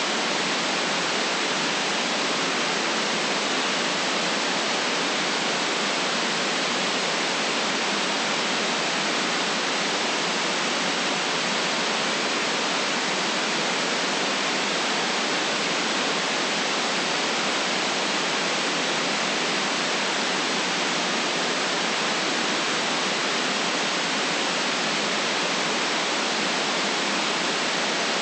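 Steady white noise: an even, unchanging hiss with no deep bass and nothing in the very highest treble.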